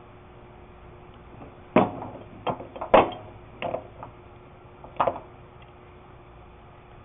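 Hydraulic nut splitter parts being handled and seated on the nut, giving about five sharp knocks and clanks between two and five seconds in, the loudest about three seconds in.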